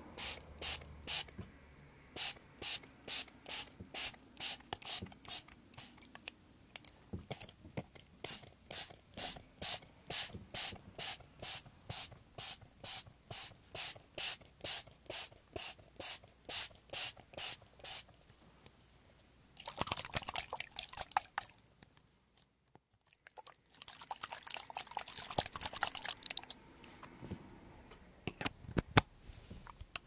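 Small soy-sauce spray bottle filled with water being shaken: short sharp sloshes in an even rhythm, about two a second, then after a pause two longer bursts of rapid continuous sloshing.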